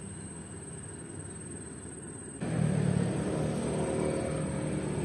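A low, steady background rumble with a faint hum in it, which steps up in level about two and a half seconds in. A constant thin high-pitched whine runs over it.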